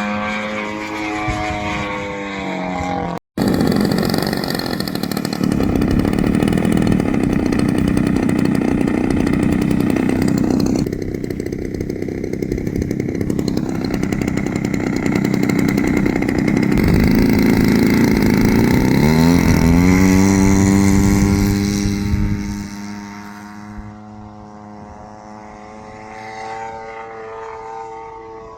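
The engine and propeller of a radio-controlled SBACH 342 aerobatic model plane in flight. The pitch shifts up and down through the manoeuvres, climbing sharply in one rise about two-thirds of the way through. It is quieter near the end.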